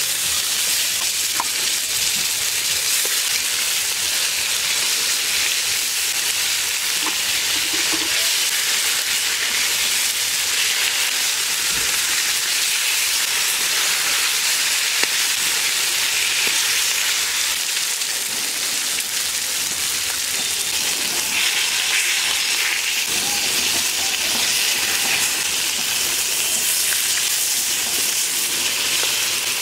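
Rohu fish steaks sizzling steadily as they fry in hot oil in a metal kadai.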